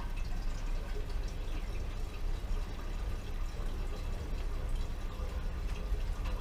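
Freshly pressed Sangiovese red wine trickling and dripping from a basket press through a sieve and funnel into a glass demijohn, a steady run of liquid.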